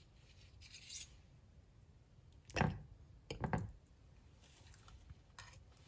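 Knife and fork cutting through a soft cheese omelette on a plate: faint squishing and scraping, with two louder scrapes of the cutlery against the plate a little past halfway.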